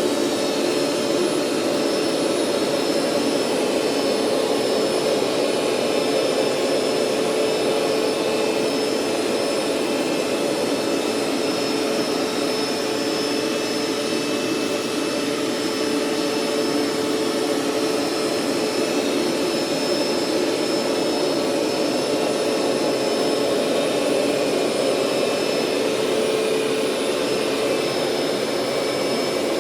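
Hoover SteamVac SpinScrub 50 carpet cleaner running steadily, its suction motor giving an even whine over a constant hum.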